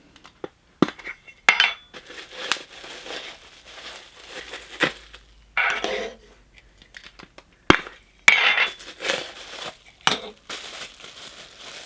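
A Funko Soda can being unwrapped and opened by hand: plastic wrap crinkling, with sharp clicks and clinks of the metal can, one of them especially sharp about three-quarters of the way through.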